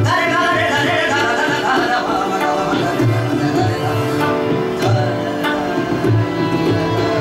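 Indian classical singing by a male vocalist, an ornamented line over a sustained keyboard drone. Tabla accompaniment runs through it, with deep bass-drum strokes and sharp treble strikes.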